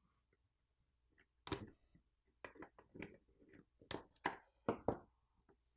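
Faint, irregular clicks and taps of a small electronic device's plastic housing and circuit board being handled during disassembly: one knock about a second and a half in, then a quick run of about eight clicks in the second half.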